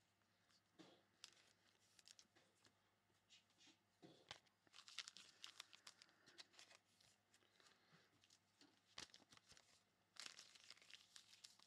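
Faint crinkling and tearing of trading card pack wrappers being opened, with the soft clicks and slides of cards handled in between; the crackles come in short clusters, busiest a few seconds in and again near the end.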